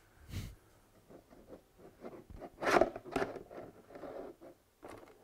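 Hard plastic cold-air-intake box scraping, rubbing and knocking against the engine bay as it is worked into place. There is a knock near the start and a louder run of scraping about three seconds in.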